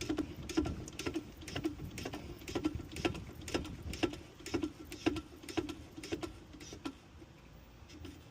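Hand pump of a manual hydraulic hose crimper being worked to close the die on a hose fitting: a steady series of clicks, about two a second, that thins out near the end.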